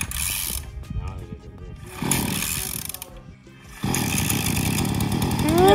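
Cold start of a 50cc two-stroke mini dirt bike engine by its pull cord. Two short pulls with the choke on; then a third, about four seconds in with the choke off, after which the engine fires and keeps running.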